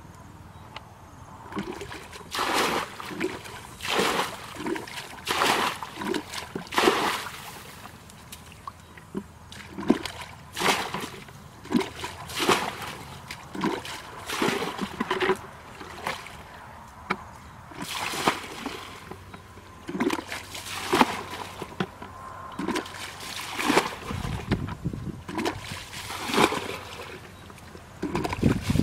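Water being bailed with a plastic bucket: repeated scoop-and-throw splashes of muddy ditch water, roughly one to two seconds apart, with heavier low sloshing near the end. The ditch is being emptied by hand to catch the fish in it.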